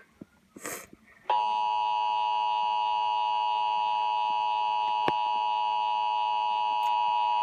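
Emergency Alert System two-tone attention signal (853 and 960 Hz) received over FM radio. It starts abruptly about a second and a half in, after a brief gap, and holds steady, announcing a Child Abduction Emergency alert.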